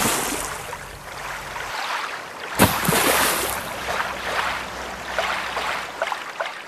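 Rushing, splashing water in surges, each starting sharply and fading over a couple of seconds, with a fresh surge about two and a half seconds in.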